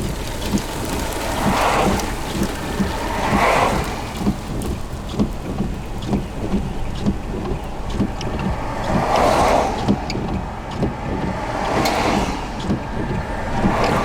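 Strong storm wind buffeting the microphone in surging gusts over a steady low rumble, with scattered sharp ticks of rain or debris striking.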